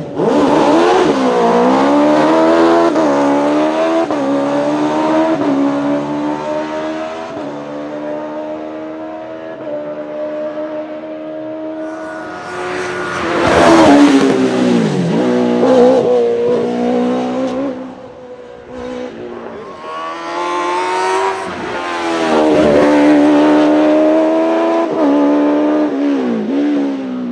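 Suzuki GSX-R 1300 Hayabusa inline-four motorcycle engine in a Lancia Y10 hillclimb prototype, revving high under full acceleration. The pitch climbs and then drops sharply at each gear change, over and over, with the car loudest as it comes closest about halfway through and again near the end.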